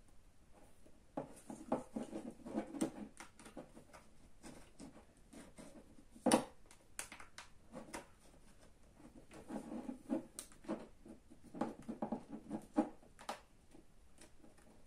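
Scraping and clicking of a tool prying at the seam of an iPod Video's case, in two bouts of rapid scratchy clicks with one sharp click about six seconds in.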